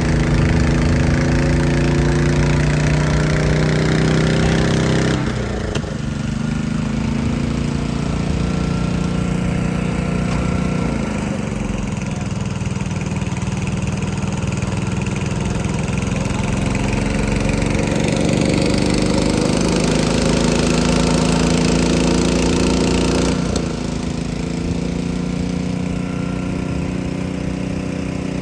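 Engine running steadily. Its pitch drops about five seconds in and changes again around eleven and twenty-three seconds.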